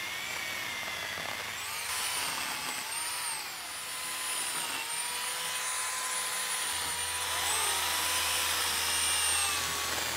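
Sun Joe electric pole chain saw running with a steady motor whine as the chain cuts into tree branches. The pitch sags and recovers several times as the chain bites into the wood.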